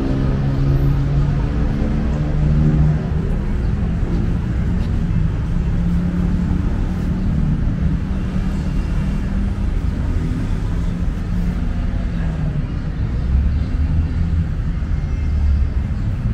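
Steady low rumble of city road traffic, with engines of nearby vehicles running and passing.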